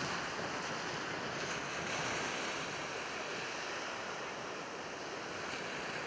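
Snowstorm wind blowing steadily across an open beach, an even rushing noise without strong gusts.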